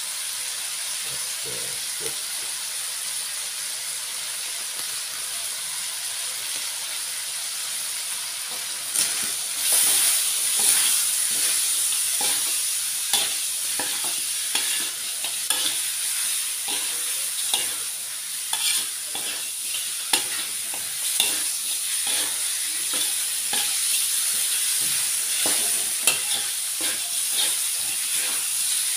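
Chicken pieces sizzling in a hot aluminium wok. About nine seconds in it gets louder, as a metal spatula stirs and scrapes against the wok in many quick, uneven strokes.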